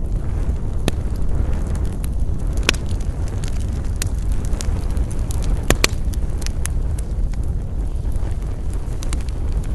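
Wood campfire crackling: scattered sharp pops and snaps, the loudest a close pair near the middle, over a steady low rumble.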